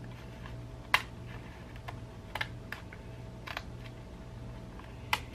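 Scissors snipping through the edge of a sheet of glued paper on cardstock: a handful of separate crisp snips spread out, the loudest about a second in, over a steady low hum.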